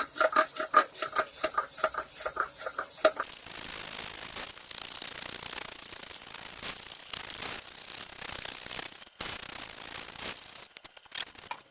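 Fret-levelling bar with abrasive paper rubbed along the metal frets of an electric guitar neck. It starts as quick, short scratching strokes and settles about three seconds in into a steady sanding rasp, taking the high frets down so the frets sit level.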